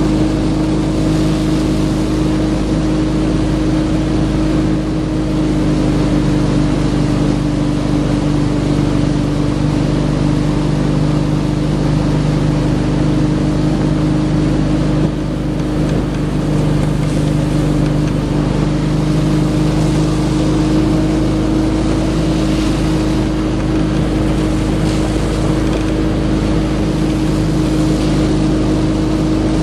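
Tow boat's engine running at a steady speed, a constant drone that holds its pitch throughout, with the rushing of the wake beneath it.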